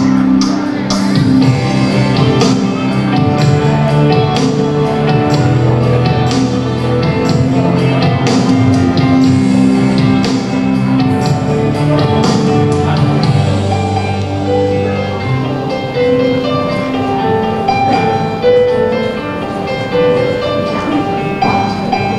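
Processional music playing while the graduates walk in, with a steady beat that drops away about two-thirds of the way through, leaving held notes.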